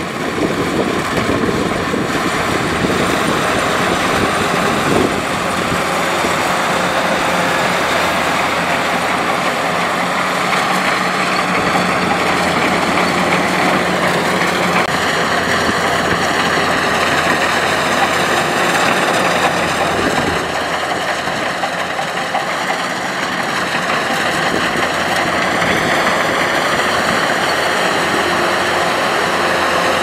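Kubota DC105X combine harvester working through standing rice: its diesel engine runs steadily under load together with the cutting and threshing machinery, one continuous loud mechanical noise.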